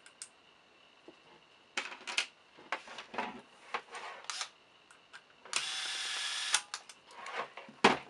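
Small clicks and knocks of parts being handled, then a small electric screwdriver runs steadily for about a second, driving a short screw into the lock housing, followed by a few more clicks.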